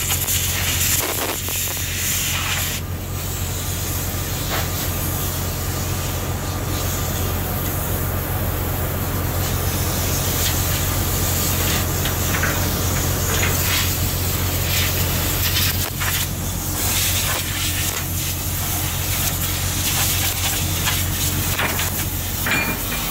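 Steady low machinery hum under an even rushing hiss, typical of a ship's running engines and ventilation, with a few faint clinks of hand tools on metal.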